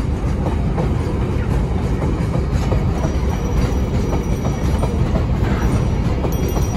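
Container freight train's wagons rolling past close by: a steady, loud rumble of steel wheels on the rails, with repeated clacks as the wheels cross rail joints.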